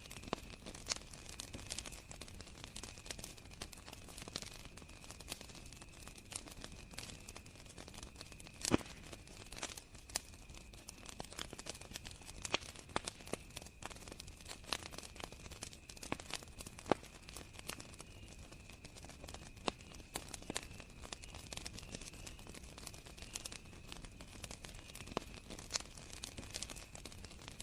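Campfire crackling with irregular sharp pops, one louder pop about nine seconds in, over a steady high cricket trill.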